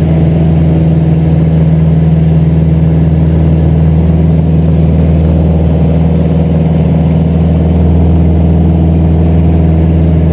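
Van's RV-8A's piston engine and propeller droning loudly and steadily inside the cockpit through an aileron roll; the engine is still being broken in.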